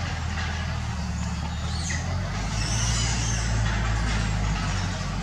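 Steady low hum of a running motor vehicle engine under a broad hiss, the hum's pitch shifting a little about two seconds in.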